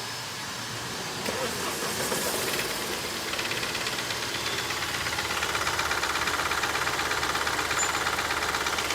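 Mahindra TUV300's three-cylinder diesel engine starting about a second in, then idling with a fast, even tick that grows a little louder. This tick comes on from a cold start, and the mechanic, as far as he can feel it, places it up top on the camshaft side rather than in the crank or pistons.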